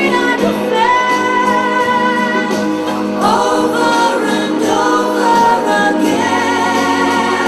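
Music with singing: voices holding long, slightly wavering notes that move to a new pitch every second or so, in a choir-like sound.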